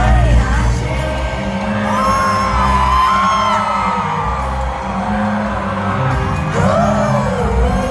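Live hip-hop/pop concert music over a venue PA, with a heavy pulsing bass beat and high voices singing and whooping over it.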